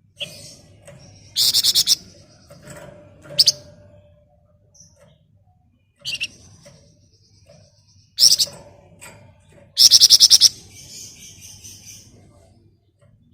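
A flamboyan songbird sings in short bursts of rapid, shrill trilled notes, the fast buzzy 'ngebren' and 'nyerecet' phrases. About six bursts come with pauses between them. The longest and loudest burst is about ten seconds in.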